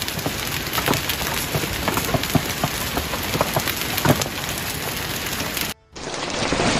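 Hail pelting a wet paved street and grass: a dense steady hiss of impacts with sharper individual clicks of stones striking the ground. It cuts out abruptly for an instant near the end, then the pelting resumes.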